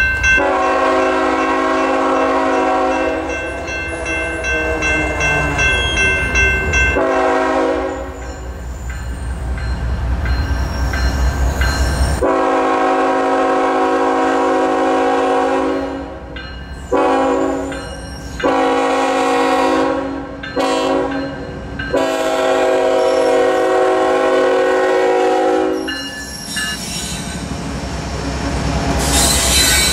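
Diesel freight locomotive's air horn sounding a long series of blasts for the crossing, mostly long with a few short ones, each a loud multi-note chord with short breaks between. Near the end the lead GE ET44AC arrives at the crossing and its engine and wheel noise swells.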